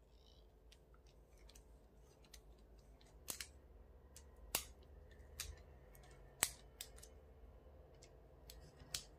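Small terminal screws being tightened down on the wires inside an inline lamp-cord toggle switch: faint scattered clicks and ticks, with a handful of sharper clicks.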